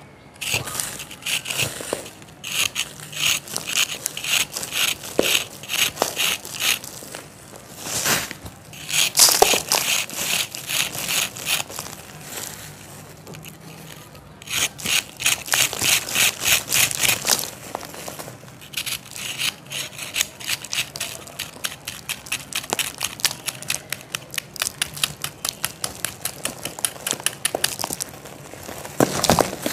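Knife blade scraping the side of a moulded block of dry yellow sand, shaving off gritty crumbs in quick repeated strokes, about three a second, with a short pause midway. Near the end the sand crumbles in the hand.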